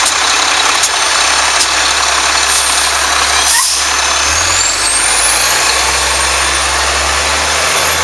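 Garbage truck's engine running loudly, with a short hiss of air about three and a half seconds in. The engine then speeds up, with a thin high whine rising in pitch as the truck pulls away.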